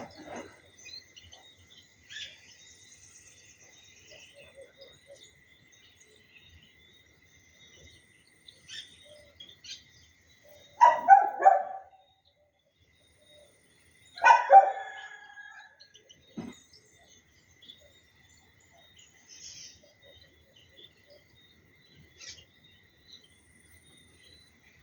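A dog barking in two short bouts, about three seconds apart, over scattered bird chirps and a steady high-pitched insect drone.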